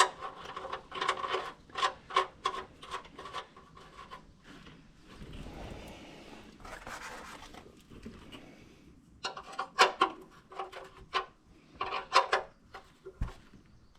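Metal clicks, knocks and rubbing as a used oil filter is handled and clamped into a vise, coming in two bunches with a soft rustle between; the clicks ring briefly like struck metal.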